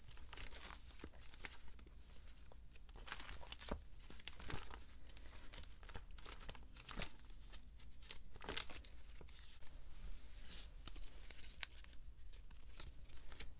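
Plastic binder sleeves rustling and crinkling as photocards are handled and slid into the pockets, with scattered light clicks and taps.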